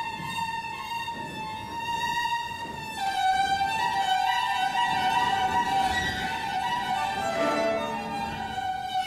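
Violin playing slow, long held notes, dropping to a lower note about three seconds in and getting louder from there.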